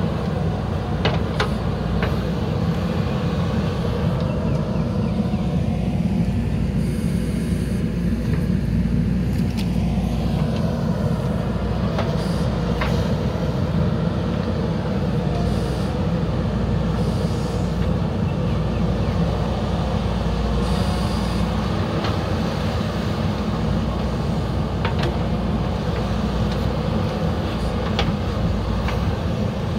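JCB 3DX backhoe loader's diesel engine running steadily under load as the backhoe digs, with a few short sharp knocks scattered through it.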